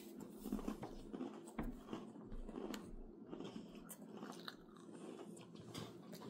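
Close-up chewing and crunching of Oreo Coca-Cola cookies, whose filling holds popping candy, with many irregular small clicks and crunches.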